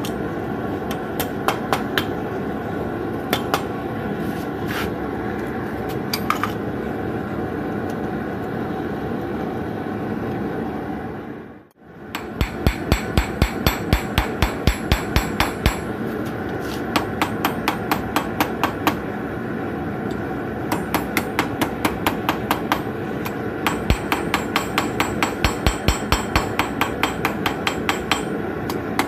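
Hand hammer striking a red-hot forged blade on a steel anvil, with a ringing blow in quick runs of about three or four a second and short pauses: final shaping and straightening of the blade. Before that there are only a few scattered knocks, and a steady rushing noise runs underneath throughout.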